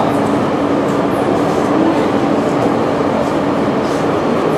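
Busy railway station concourse ambience: a steady, dense din of the hall with a steady low hum running through it that fades out near the end.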